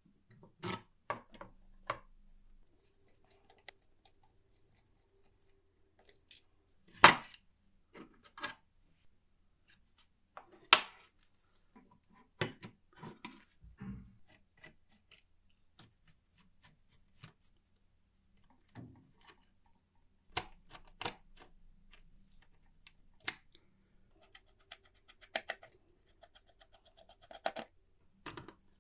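Scattered sharp clicks, clinks and short scrapes of small metal typewriter parts being handled and worked on, with two louder knocks about seven and eleven seconds in.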